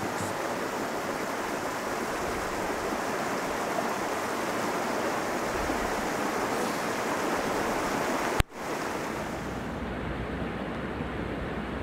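Steady rushing water of a mountain stream. A sharp click comes about eight seconds in, after which the rush is duller with more low rumble.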